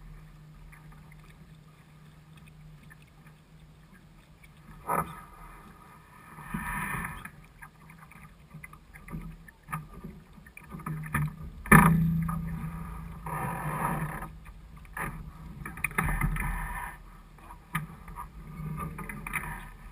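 Water lapping and slapping against the hull of a small sailboat under sail, close to the microphone, in irregular washes. There are a few sharp knocks, the loudest about twelve seconds in, over a steady low hum.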